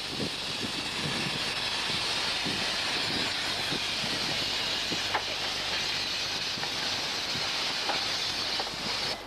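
Steam hissing steadily from a stationary 15-inch gauge steam locomotive, cutting off suddenly near the end.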